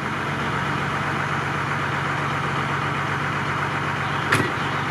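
UAZ off-roader's engine running steadily at low revs as the vehicle creeps through swamp mud, with one short sharp click about four seconds in.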